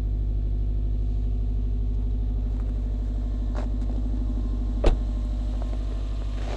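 A 2012 Subaru WRX STI's turbocharged 2.5-litre flat-four idling with a steady, pulsing rumble. A car door shuts with a single sharp thud about five seconds in.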